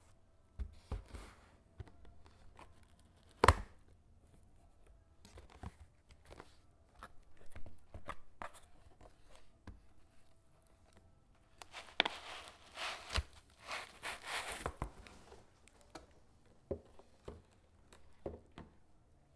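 Hands handling and opening a merchandise package: scattered light taps and clicks, a sharp knock about three and a half seconds in, then a stretch of rustling wrapping from about twelve to fifteen seconds in.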